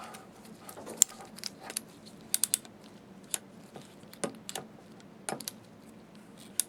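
Scattered sharp metal clicks and ticks from the tilt (angle-of-inclination) mechanism of a Haag-Streit 900 BM slit lamp as the arm is worked to check that it clicks into its lowest notch. One loud click comes about a second in, and three quick ones follow about a second later.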